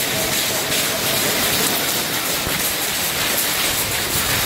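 Many runners' feet crunching across a shingle beach: a dense, steady clatter of pebbles underfoot.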